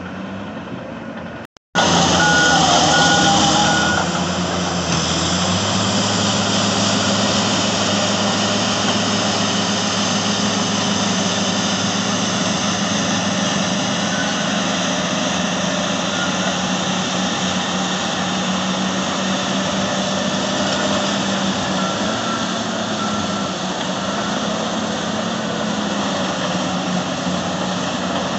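Heavy diesel engines of Caterpillar D10N dozers and 651E scrapers working under load: a loud, steady deep drone whose pitch rises and falls as the engines rev. Reversing alarm beeps sound near the start, with a brief dropout of all sound about a second and a half in.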